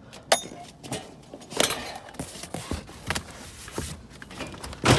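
Irregular knocks, clicks and rustling as cardboard cases of boxed cylindrical door locks are handled and shifted in a dumpster, with about six sharp knocks, the loudest near the start and at the very end.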